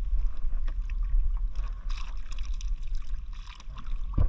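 Water sloshing and splashing around a small fishing boat over a steady low rumble, with scattered knocks and a sharper knock near the end.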